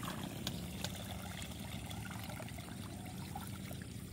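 Water trickling and sloshing in a muddy ditch as a plastic bucket is dipped and filled, water for flooding a rat burrow.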